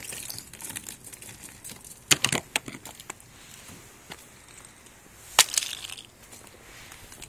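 Sheets of glaze ice from freezing rain cracking and breaking: a quick cluster of sharp cracks about two seconds in, then one loud crack with a short scatter of smaller ones about five seconds in as the ice shatters into shards on pavement.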